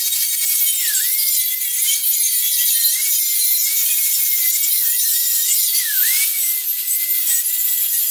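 Electric angle grinder running with a steady high whine, its disc grinding the rusty steel of an old Mercedes W460 split bumper with a hissing rasp. The whine sags briefly several times as the disc is pressed into the metal under load.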